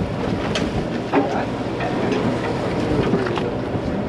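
A boat's engine running with a steady drone, with scattered light clicks and faint voices over it.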